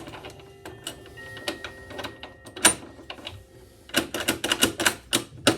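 Door lock mechanism clicking as a key is worked in an Ingersoll lock: a few scattered sharp clicks, then a quick run of clicks, about five a second, near the end.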